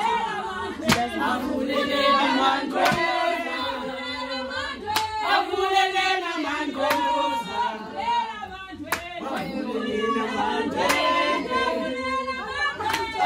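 A group of people singing together, with a sharp clap about every two seconds.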